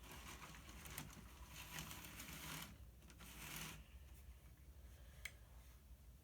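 Faint whir of a Bachmann 2-8-0 Consolidation model locomotive's small electric motor running on the track, rising and fading, with a couple of sharp clicks from the wheels on the rails.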